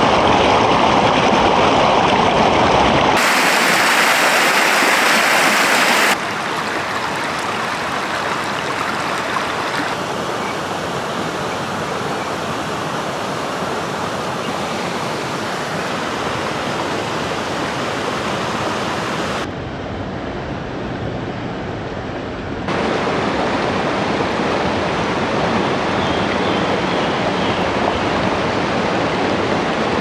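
Shallow river rushing and splashing over rocks and small rapids, a steady rushing of water whose loudness and tone jump abruptly several times, at about three, six, ten, twenty and twenty-three seconds in.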